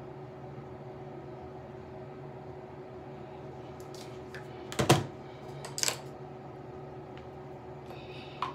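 Small hard makeup items, a palette and brushes, clicking and knocking as they are handled and set down on a table: a few scattered clicks, the loudest a sharp double knock about halfway through. A steady room hum runs underneath.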